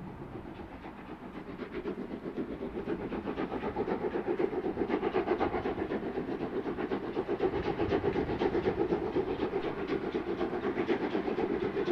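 Prussian T18 (class 78) steam tank locomotive 78 468 working a train, its exhaust beating in a rapid, even rhythm. The beats grow louder over the first few seconds as it approaches, then hold steady.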